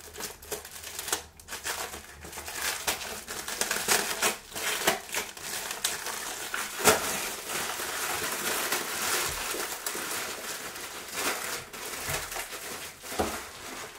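Plastic packaging crinkling and rustling as a small boxed item is unwrapped by hand, with many sharp crackles and one louder crackle about seven seconds in.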